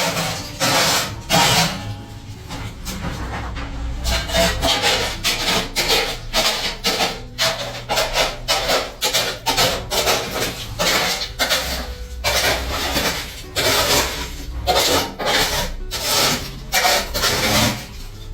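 Repeated rasping, rubbing strokes, about two a second, with a short lull a couple of seconds in.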